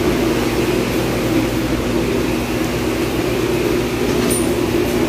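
A steady mechanical hum with an even drone, unchanging throughout, and a faint click about four seconds in.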